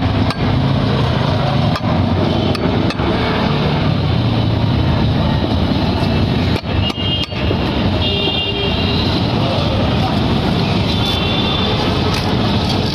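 Steady roar of busy road traffic, with short horn toots twice in the second half. A few sharp clicks and scrapes in the first half come from a large carp's scales being scraped off against a boti blade.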